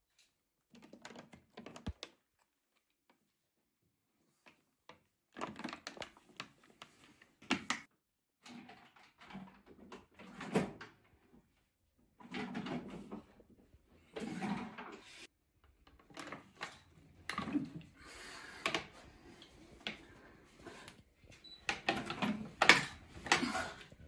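Irregular knocks, bumps and creaks from weighted pull-ups on a homemade pipe bar across a doorframe, with water-filled plastic jugs hanging from a rope belt. The sounds come in clusters every second or two.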